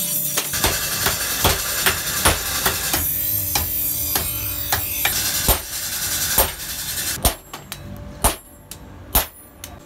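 Hand hammer striking red-hot steel held in tongs on an anvil, hand-forging a sickle blade: repeated metal-on-metal blows, roughly one or two a second. A steady hiss lies under the first blows and drops away about seven seconds in, after which the last few strikes stand out sharper, each with a ringing tail.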